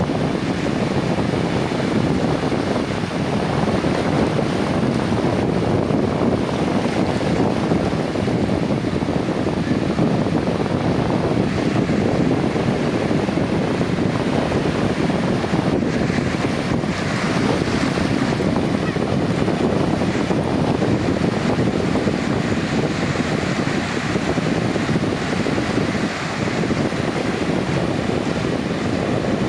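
Sea waves breaking and washing on a beach in a steady surf, with wind buffeting the microphone.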